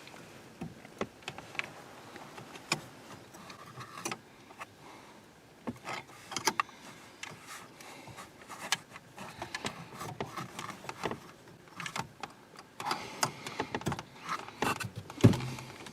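Irregular clicks, taps and rattles of hard plastic dash trim and wiring connectors being handled and worked loose behind a car's center dash panel, with a louder knock near the end.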